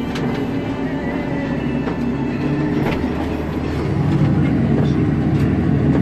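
Claas Axion tractor engine running steadily under load, heard from inside the cab while it pulls a plough, with a few brief clicks and rattles. A little past halfway the sound gets deeper and somewhat louder.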